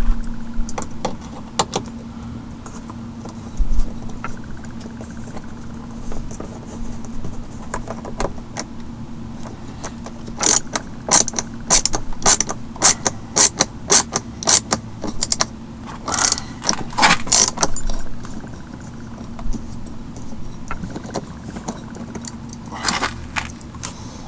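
Hand tools and small metal parts clicking and clattering against a car door panel as it is worked on. There is a run of rapid sharp clicks about halfway through, and a steady low hum underneath throughout.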